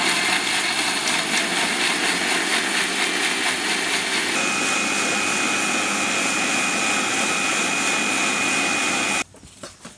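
Electric mixer grinder running at full speed, blending a chocolate milkshake of milk, ice cream and biscuits. A thin high whine joins about halfway through, and the motor noise stops abruptly about nine seconds in.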